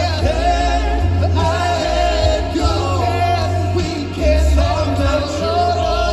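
Live band playing a song with a lead singer over a heavy bass line.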